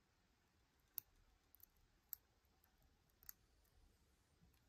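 Faint, sharp metallic clicks of a lock pick working the pins of a Harry Bow Chicane challenge lock, three distinct clicks about a second apart with a few softer ticks between them.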